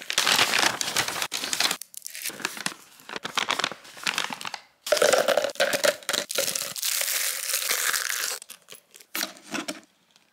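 Cellophane, plastic candy wrappers and paper labels crinkling and tearing as they are handled, in several bursts broken by short pauses.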